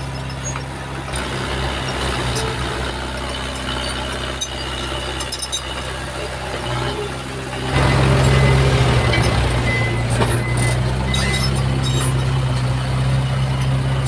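Diesel engine of heavy earthmoving machinery running steadily, growing clearly louder about eight seconds in as it revs or takes load. A brief high hiss comes near the ten-second mark.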